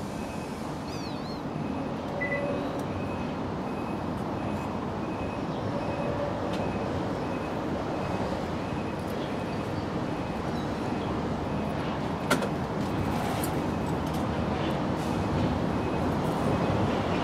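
Steady low outdoor background rumble, with a faint high tone repeating at an even pace and a single sharp click about twelve seconds in.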